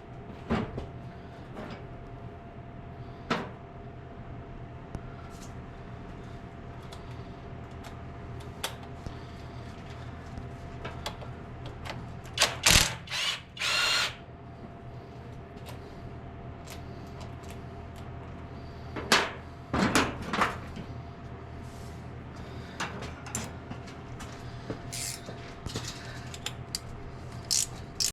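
Hand tools and metal engine parts clinking and knocking during a teardown of an old truck's engine top end, with scattered single clicks and two short runs of louder clattering, one a little before halfway and one about two-thirds through. A steady machine hum runs underneath.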